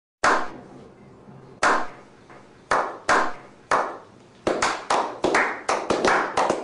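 A small group's slow clap: single hand claps about a second apart, quickening from about four and a half seconds in into fast, overlapping clapping by several people.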